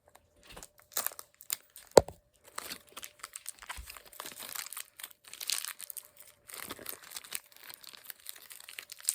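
Packaging crinkling and tearing in irregular crackles as a toy figure is worked out of it, with one sharp snap about two seconds in.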